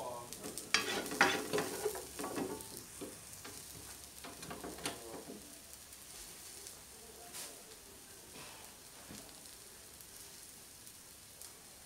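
Sliced green chilies, shallots and garlic sizzling in oil in a nonstick frying pan, with a wooden spatula scraping and stirring against the pan in the first few seconds and briefly again about five seconds in. After that only a steady, quiet sizzle.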